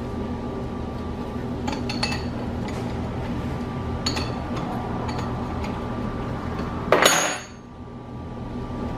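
Metal clinks and taps as an antique Pickering steam-engine governor is taken apart by hand, with one louder metallic clank that rings briefly about seven seconds in. A steady low hum lies underneath.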